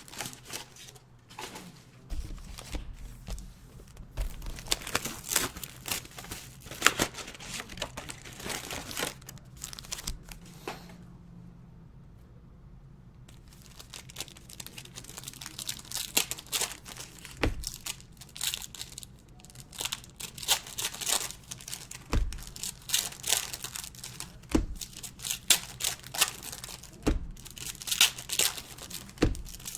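Plastic wrapping of trading-card packs and boxes being torn open and crinkled by hand, in irregular rustling crackles with a short lull about halfway through. Several dull knocks in the second half.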